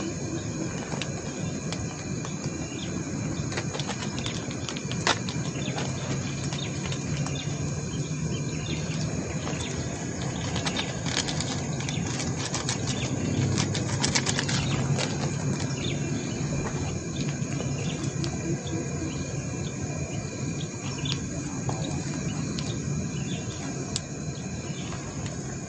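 Steady chorus of insects buzzing in the riverside trees, several constant high tones. Between about 11 and 15 seconds in, a quick run of clicks and small rattles as fishing tackle is handled in the boat.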